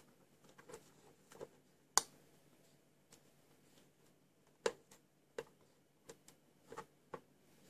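Light, irregular clicks and taps from a hand working the front-panel contrast knob of a 1982 Monacor CDM-900/SW CRT monitor, sharpest about two seconds in and again just before five seconds.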